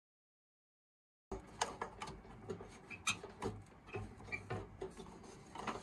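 Silence for about the first second, then scattered small clicks, taps and rubbing of hands working a RAM stick into a desktop PC's motherboard slot, plastic and metal parts knocking inside the case.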